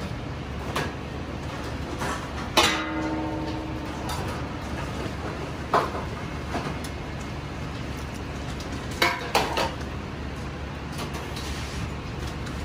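Stainless steel kitchenware clanking: a ringing metal clang about two and a half seconds in, then lighter knocks and clinks, over a steady background hum.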